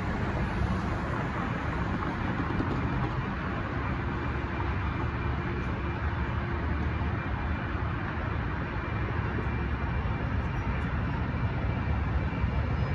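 Steady street ambience: a hiss of distant road traffic over a low, even rumble.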